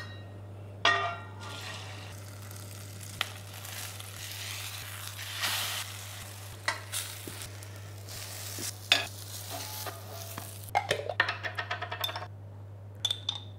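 An eggplant omelette sizzling and frying in oil in a stainless steel pan, with clinks of metal against the pan. Near the end comes a quick run of clinks from a metal spoon in a small glass jar.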